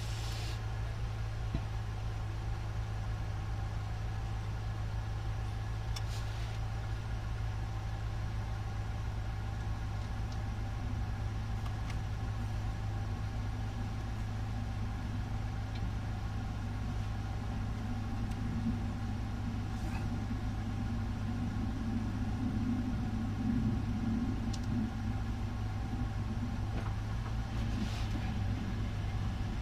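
A steady low hum with a few faint clicks and taps.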